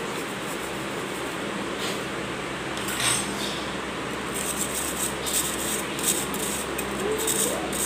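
Steel spoon scraping instant coffee powder through a fine metal mesh strainer: a couple of scrapes, then quick repeated scraping strokes over the second half, over a steady background hiss.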